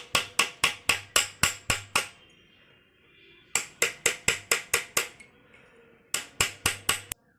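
Hammer blows on metal: three runs of quick, sharp strikes, about four a second, each with a short metallic ring, with brief pauses between the runs.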